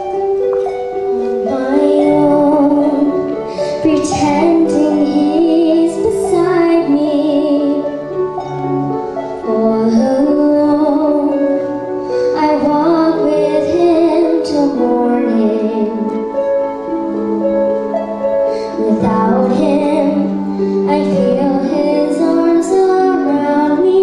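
A girl singing a slow musical-theatre ballad solo into a microphone over instrumental accompaniment, with vibrato on her held notes.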